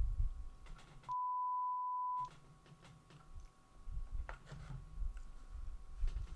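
A steady, pure one-kilohertz bleep tone lasting about a second, edited in so that all other sound drops out while it plays, in the manner of a censor bleep. Low thumps and a few faint clicks of handling come before and after it.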